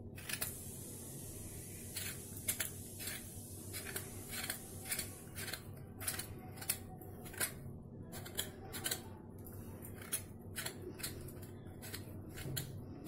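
Knife blade scraping the skin off a pointed gourd (parwal), in short, irregular strokes about one or two a second.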